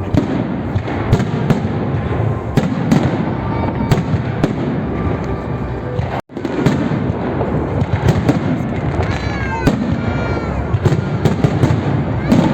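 Festive fireworks salute: many sharp bangs in quick, irregular succession over a continuous rumble of bursts, with a brief break in the sound about six seconds in.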